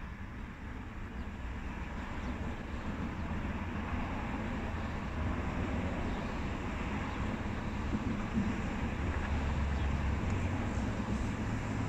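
Low, steady rumble of a vehicle engine running, growing slowly louder.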